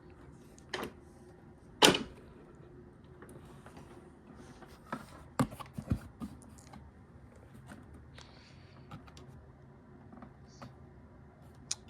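Scattered clicks and knocks of hands working at the plastic body and latches of a Hoover C1415 upright vacuum cleaner, which is hard to open, with the motor off. The sharpest knock comes about two seconds in, and a cluster of knocks follows around the middle.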